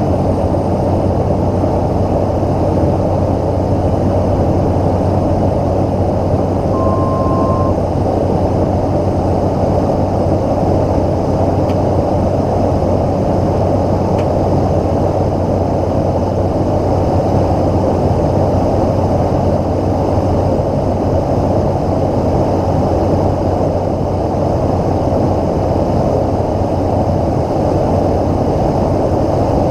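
Steady cockpit drone of a Cessna 208 Caravan's turboprop engine and airflow heard inside the cabin on descent. A short single-pitch beep sounds about seven seconds in.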